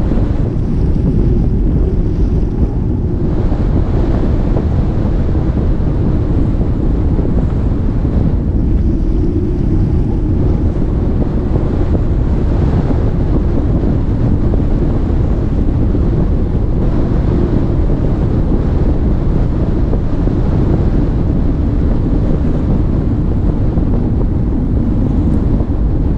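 Steady wind buffeting the microphone, with water rushing along the hull of an Albin Vega sailboat under sail, now and then swelling briefly.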